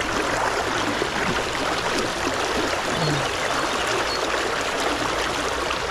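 Tailwater river flowing: a steady rush of moving water.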